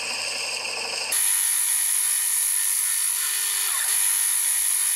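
Metalworking lathe spinning an oak blank while a turning tool cuts it down, a steady machine whine with the hiss of the cut. About a second in the sound changes abruptly to a higher, hissier tone.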